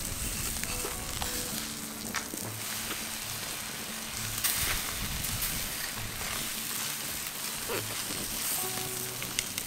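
Skin and fat of a whole pig sizzling and crackling as it roasts on a spit over hot coals: a steady hiss peppered with small pops.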